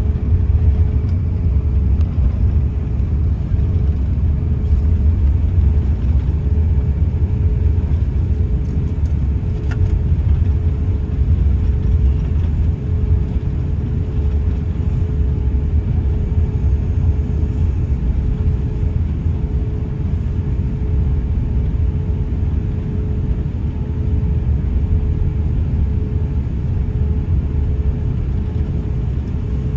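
Cabin noise inside an Airbus A350-900 airliner: a steady, deep rumble from its engines and airflow, with a faint steady hum above it.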